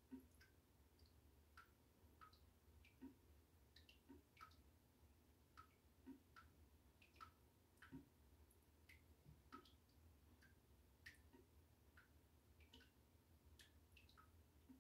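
Faint, irregular drips of water plinking into bathwater, roughly two a second, over a steady low hum.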